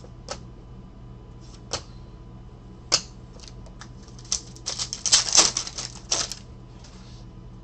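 A few separate clicks of trading cards being handled, then about four seconds in a burst of crackling from the foil wrappers of trading-card packs being handled and opened, lasting about two seconds.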